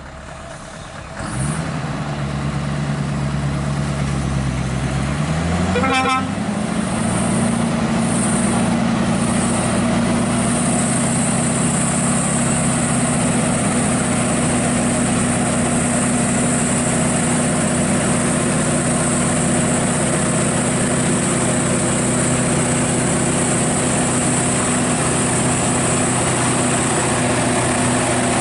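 Scania R580 truck's V8 diesel on open exhaust pipes pulling a low-loader with an excavator. The engine climbs in pitch, then holds a steady loud note, with a high whistle joining about seven seconds in. A short horn toot sounds about six seconds in.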